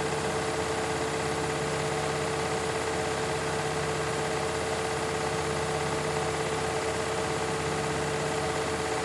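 Beko and Candy washing machines in their spin cycle, drums spinning at a steady high speed with a constant motor whine over a rushing hum.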